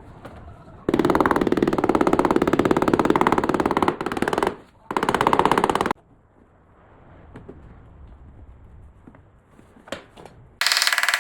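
Loud, very rapid mechanical rattling, many hits a second, in bursts that start and stop abruptly: a long one of about three and a half seconds, a shorter one right after, and another near the end.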